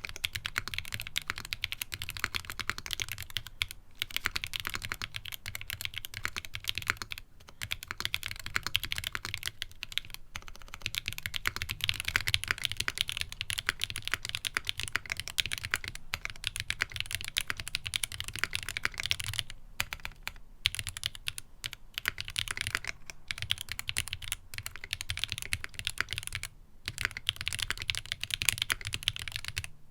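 Fast, continuous typing on a Ginkgo65 gasket-mounted mechanical keyboard with an aluminium plate and factory-lubed Gateron Cream Soda linear switches, a dense stream of keystrokes with a few short pauses.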